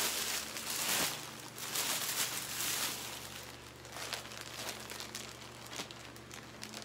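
Plastic packaging crinkling and rustling as it is handled: a clear plastic shirt sleeve and a grey plastic mailer bag. The crinkling is loudest in the first three seconds, then fades to lighter, scattered rustling.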